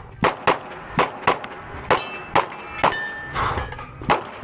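A string of 9 mm pistol shots from a Glock 19 fired during a timed competition stage, about eight shots in quick pairs and singles with short pauses between.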